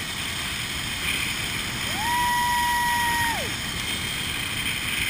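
Steady rushing of wind and the zipline trolley running along the steel cable during a fast ride. About two seconds in, a single high tone rises, holds steady for about a second and a half, then falls away.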